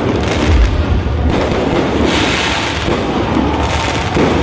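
Fireworks going off in a continuous barrage, with a deep boom about half a second in and a burst of crackling about two seconds in.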